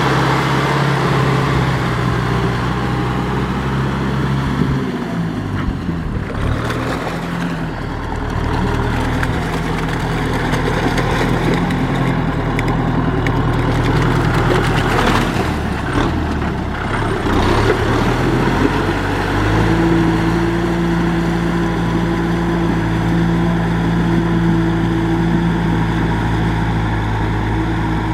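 Tractor engine running under load, its speed dipping and picking up again twice, about a fifth of the way in and again just past halfway, then running steady.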